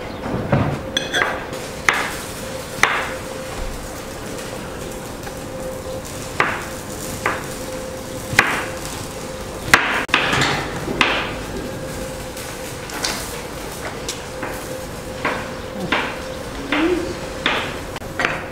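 Hammer blows on building work: irregular sharp knocks, roughly one a second, over a faint steady hum.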